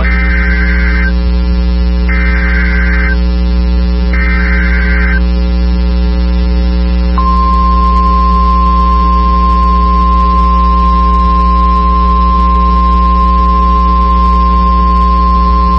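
Emergency Alert System SAME header: three screechy digital data bursts of about a second each, two seconds apart. After a short gap, about seven seconds in, comes the steady single-pitch 1050 Hz NOAA Weather Radio warning alarm tone, held through the rest. A steady low electrical hum runs underneath.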